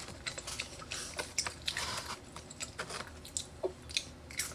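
A person chewing food with an open-mouth, wet sound close to the microphone: a run of irregular mouth clicks and smacks.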